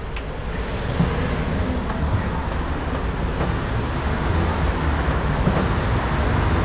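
City bus engine running, a steady low rumble that grows a little louder about a second in, with a few small knocks over it.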